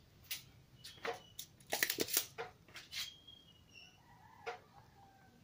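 Scattered small clicks and taps from hands handling a circuit board and tools, irregular, with a quick cluster of them about two seconds in.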